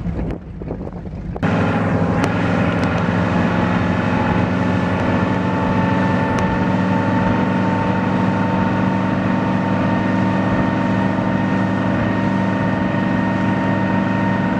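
Motorboat engine running steadily under way, a constant drone mixed with water and wind noise. A quieter stretch of wind and water gives way abruptly to the engine drone about a second and a half in.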